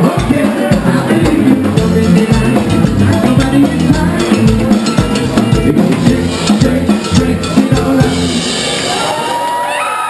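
Live band playing loud, with a pounding drum kit and bass guitar. About eight seconds in the song ends and the crowd cheers and shouts.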